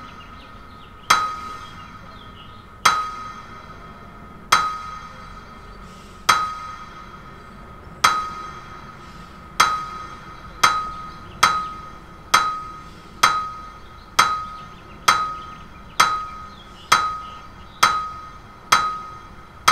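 Sharp metallic strikes, each with a short ringing tone, like a hammer on an anvil, repeating and speeding up from about one every two seconds to about one a second. It is the exaggerated ticking of the condemned man's wristwatch.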